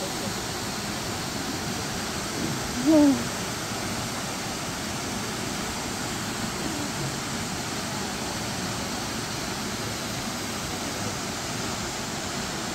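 Cascade Falls, a tall waterfall plunging into a pool, giving a steady, even rush of falling water. One short pitched call rises above it about three seconds in.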